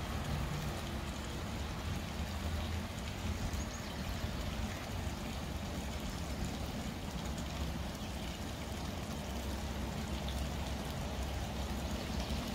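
Steady trickling and gurgling of a small creek's water, over a low steady rumble.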